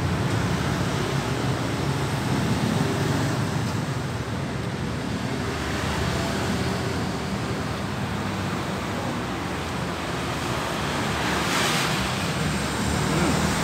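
Steady rain, an even hiss with no break, with road traffic running underneath.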